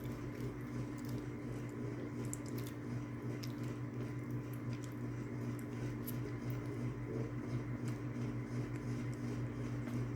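Steady low electrical hum with a faint high steady tone, and scattered faint clicks.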